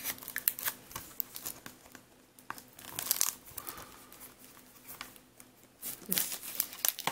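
Clear plastic shrink-wrap on a Blu-ray case crinkling and crackling as fingers pick at it to tear it open. The crackles come in irregular bursts, with denser clusters about three seconds in and again near the end.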